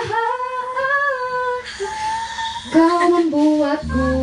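A woman singing long, held notes into a handheld microphone, with a short breath break about halfway; a low steady accompanying note comes in near the end.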